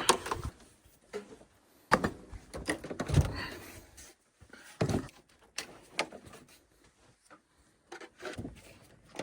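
A handful of separate knocks and clunks, a second or more apart, some trailing into brief scraping or rattling, as objects are handled and set in place in a small enclosed room.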